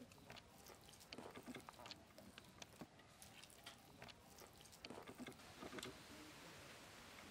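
Faint soft squishing and light irregular clicks of boiled elephant foot yam being mashed by hand on a stainless steel plate.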